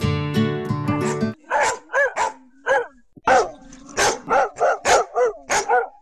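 Acoustic guitar music that stops about a second in, then a dog barking repeatedly, about a dozen barks in short quick runs.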